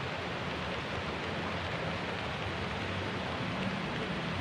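Steady hiss of light rain falling on the pond and the grassy bank.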